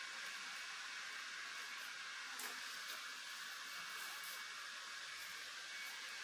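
Steady faint hiss with a few soft ticks and rustles, about two and a half and four seconds in, as hands move the leaves and vines of a Nepenthes pitcher plant.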